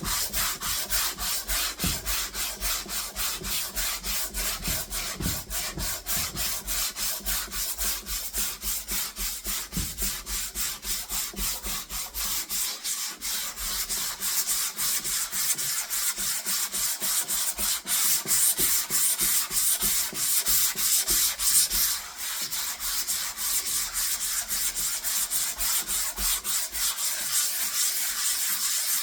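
Hand sanding of a wooden tabletop with 120-grit sandpaper, in quick rhythmic back-and-forth strokes of about three a second, with a short pause about two-thirds of the way in.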